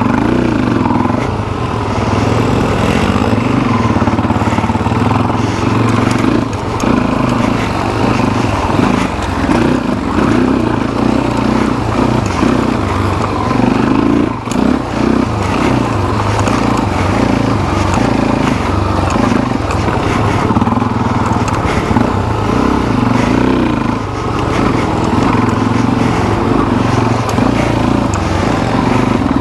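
Suzuki DR-Z400SM's single-cylinder four-stroke engine running as the bike is ridden, its revs rising and falling with the throttle, with a brief dip in loudness about halfway through.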